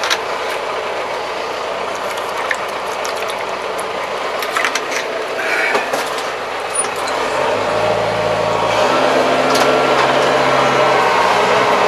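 A Kubota 75-horsepower tractor runs under way, heard from inside the cab, with scattered clicks and rattles. The engine gets louder and its hum more pronounced about eight seconds in.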